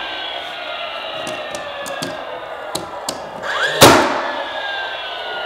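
DeWalt cordless finish nailer shooting a nail through a plinth block into a stud. A short rising whine as its flywheel motor spins up, a sharp crack of the shot about four seconds in, then a falling whine as the flywheel winds down. The fading whine of the previous shot runs through the first second or so.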